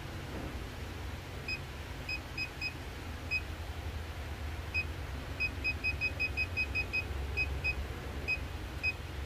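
Digital battery tester beeping: about twenty short, identical high beeps in irregular runs as its buttons are pressed, quickest between about five and seven seconds in, over a faint low rumble. The beeps come during a health test of the carrier's starting battery.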